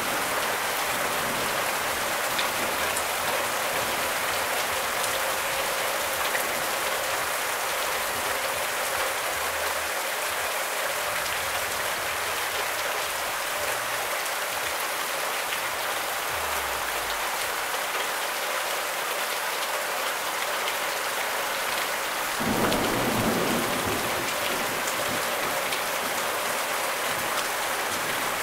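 Heavy rain pouring steadily onto trees and grass, an even hiss. A brief low rumble swells up about three-quarters of the way through.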